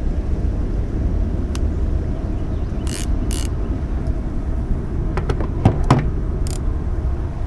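Steady low rumble on the head-mounted camera's microphone, with two sharp clicks about three seconds in and a cluster of knocks around five to six seconds in as a baitcasting rod and reel are handled and boots step on the dock. The rumble cuts off abruptly at the end.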